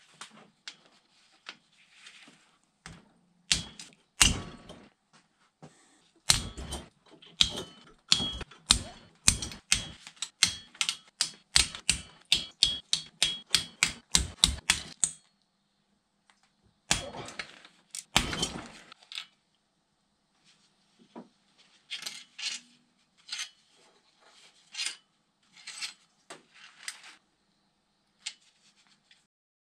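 Hand ratchet with a 10 mm socket clicking in quick, even strokes as crankcase bolts are worked loose: a steady run of clicks for several seconds, a short burst after a pause, then scattered clicks.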